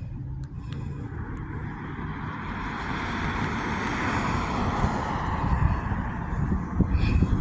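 Rushing noise of a passing vehicle with a low rumble, swelling to its loudest about four seconds in.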